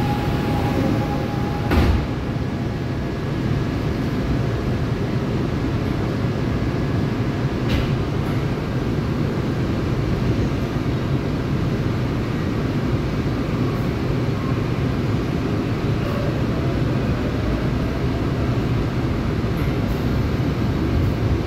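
Steady rumble and hum inside a Seoul Subway Line 4 electric train car as it stands at a station and then pulls away. There is a single sharp knock about two seconds in.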